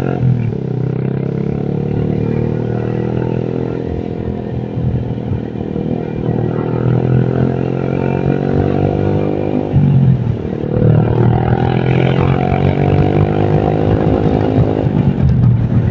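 Motorcycle engine running steadily under way, easing off and picking up again about ten seconds in and near the end.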